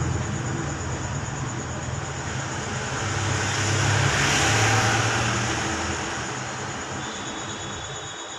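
A motor vehicle passing by: engine and road noise swell to a peak about halfway through, then fade away, with the low engine hum dropping out near the end.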